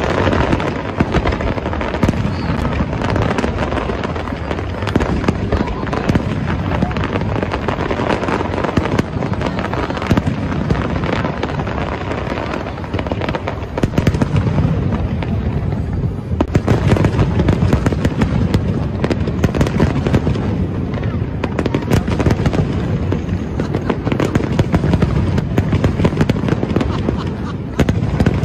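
Fireworks display: a continuous barrage of shell bursts and crackling, with bangs packed closely together, growing louder and denser about halfway through.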